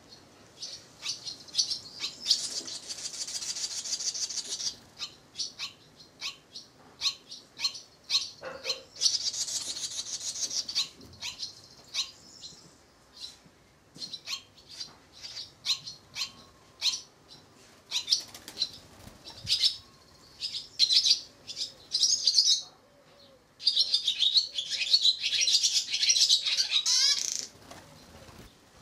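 Barn swallows at the nest chirping and twittering: short high chirps keep coming, with longer bursts of rapid twittering about two seconds in, around nine seconds, and again from about twenty-four seconds.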